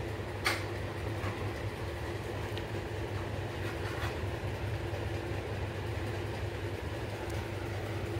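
A steady low rumbling hum with a faint constant tone, broken by one sharp click about half a second in and a few fainter clicks after.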